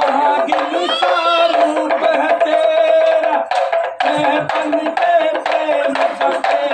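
Naagin-dance music: a snake-charmer's pipe melody over a steady drone, with quick drum beats.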